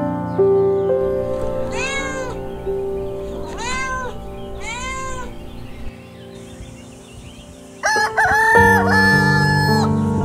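Soft background music with animal sound effects laid over it: three short cat meows in the first half, then a rooster crowing near the end.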